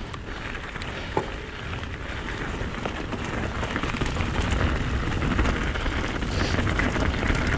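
Mountain bike tyres rolling over a gravel track and then rough dirt singletrack, a dense crunch and patter with many small rattles from the bike, over a low wind rumble on the camera microphone. It grows steadily louder as the bike picks up speed.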